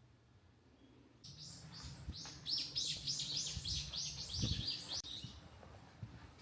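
A small songbird singing a rapid run of repeated high notes, each falling in pitch, about four or five a second. It starts about a second in and stops about a second before the end.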